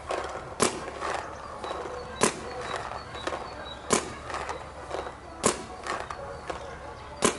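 Paintball marker firing single shots, five sharp pops about one every one and a half seconds, with fainter pops in between.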